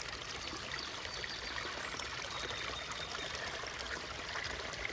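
Rain-swollen runoff stream rushing steadily through a garden ravine, flowing high after about nine inches of rain.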